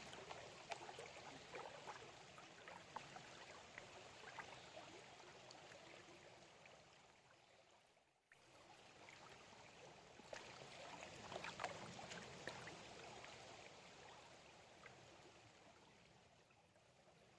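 Faint water sloshing and trickling as a gold pan is worked in a shallow creek, with small clicks of gravel in the pan. The sound cuts out briefly about eight seconds in, then swells again.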